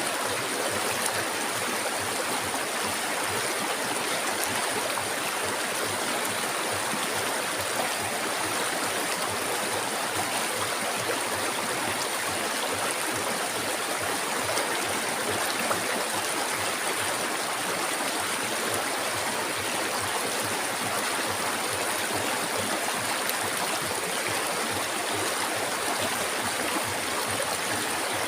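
Flowing river water, a steady unbroken rush.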